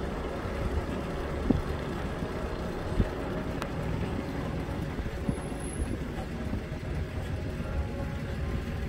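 Steady low rumble of a vehicle moving slowly, with two faint knocks about one and a half and three seconds in.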